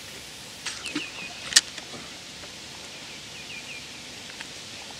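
A few sharp clicks from handling the ledger rod and reel, the loudest about a second and a half in, over steady outdoor background noise. A small bird gives short high chirps twice, three quick notes each time.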